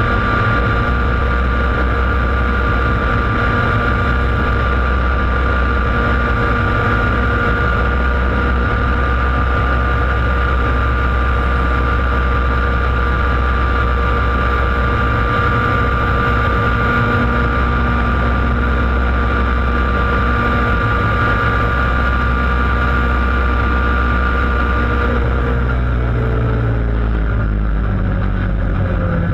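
Laydown enduro racing kart's engine running flat out at a steady high pitch, heard on board. In the last few seconds the pitch falls as the engine slows.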